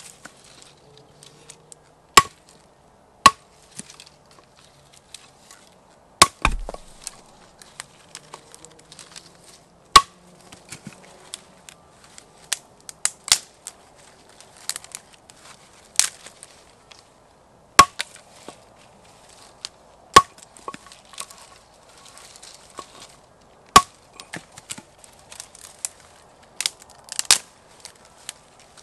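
Hatchet chopping thin branches against a wooden block: single sharp chops every few seconds, with smaller cracks and rustles of the sticks between them.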